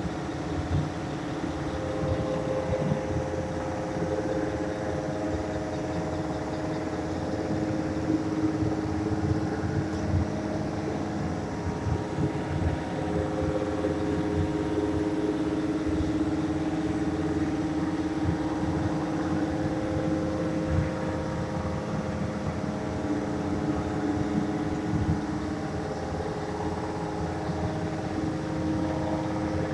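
A motor running steadily, with an even hum over a rough low rumble.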